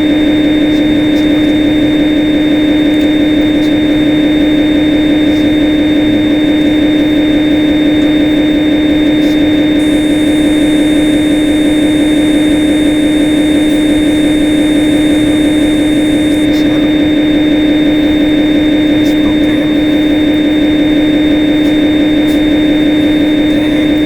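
Swansoft CNC lathe simulator's machine sound with the spindle running after an M03 start command: a loud steady hum with a thin high whine above it. A high hiss joins in about ten seconds in and stops suddenly some six seconds later.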